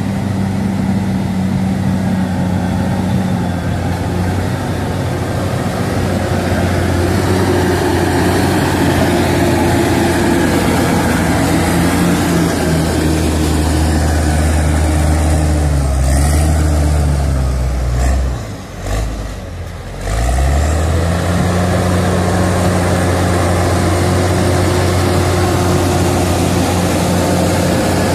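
Crawler bulldozer's diesel engine running close by at working revs. Its note sinks and briefly falls away about two-thirds of the way through, then picks back up and holds steady.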